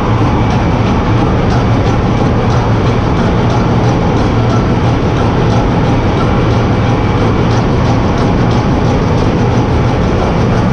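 Ship's engine room with the large two-stroke main diesel engine running: a loud, steady mechanical din with a strong low hum and faint, regular ticking over it.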